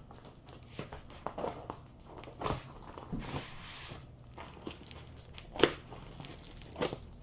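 Plastic bubble-wrap mailer crinkling and rustling as the rolled package is handled and turned over, with scattered light clicks and one sharp click a little past the middle.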